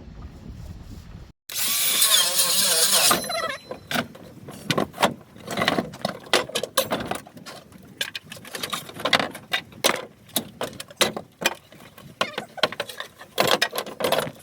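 Deck repair work on wooden boards: about two seconds of loud, harsh squealing noise, then a run of irregular knocks and clattering as the boards are worked on.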